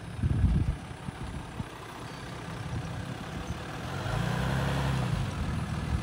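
Jeep Wrangler Rubicon's engine running at crawling speed as the vehicle climbs a dirt mound. It grows louder and steadier about four seconds in as it takes the load of the climb, after a brief low rumble near the start.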